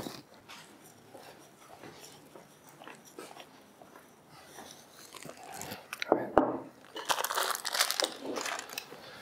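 Quiet room with a few faint knocks, then sharp clicks about six seconds in and a burst of crinkling, crunching noise for about a second and a half: things being handled and set down on a table.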